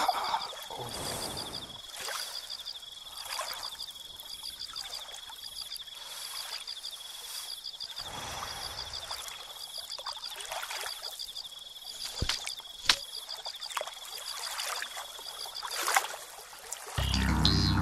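Forest ambience: a stream trickling, with a steady high-pitched pulsing trill that stops near the end. A couple of sharp clicks come about twelve seconds in, and music starts just before the end.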